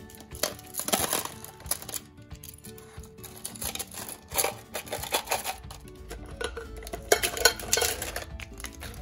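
Small plastic toy cutlery clattering in several bursts as it is dropped by the handful into covered Pringles cans, over background music.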